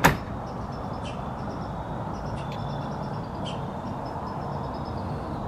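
Small birds chirping in quick series of short high notes over a steady low background hum, with one sharp click right at the start.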